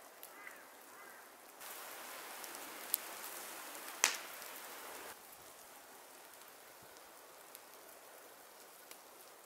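Pen tip scratching on a wooden board as it traces around the base of a flashlight, a faint, even scratch lasting about three and a half seconds, with two sharp clicks partway through.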